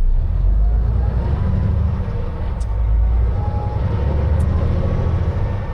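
Semi truck on the move, heard from inside the cab: a steady, heavy low engine and road rumble.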